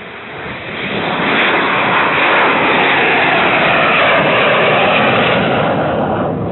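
Fighter jet flying low overhead: a loud jet-engine roar that builds up, is loudest through the middle as the aircraft passes, then eases off.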